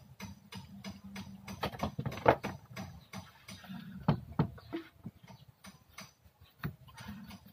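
Irregular clicks and knocks of a metal hand tool worked against a fire extinguisher's valve head, the loudest knock about two seconds in.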